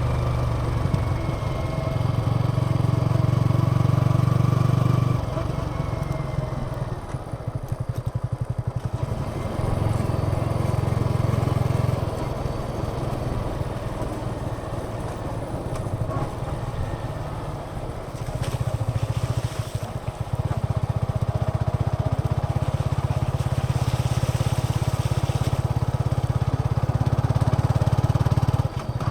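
Yamaha XSR 155's single-cylinder engine and stock exhaust while riding. It alternates between loud stretches under throttle, at the start, briefly around ten seconds in and again from about twenty seconds on, and quieter stretches of easing off, where the individual firing pulses stand out.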